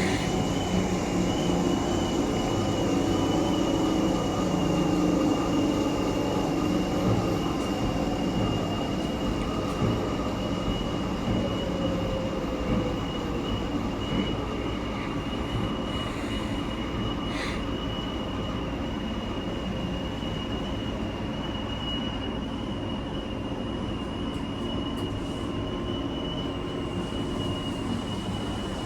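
Steady mechanical rumble and hiss with a constant high-pitched whine, a running machine.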